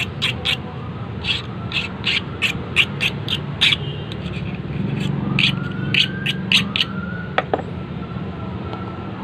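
A steel hand file rasping in short, quick strokes, about two or three a second, across the edge of a freshly machine-cut duplicate key to take the burrs off the new cuts. The strokes pause briefly about four seconds in and stop about seven seconds in.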